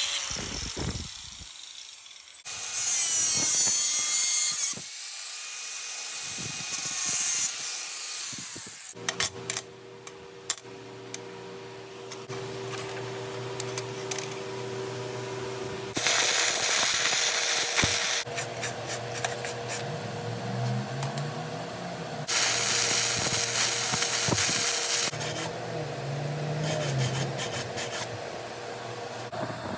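Workshop power tools running in several short stretches with abrupt changes between them. A steady motor hum runs through the second half, with scattered sharp clicks and louder bursts of noise.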